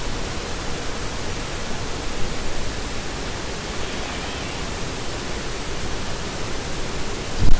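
Steady hiss of background noise, with one short low thump near the end.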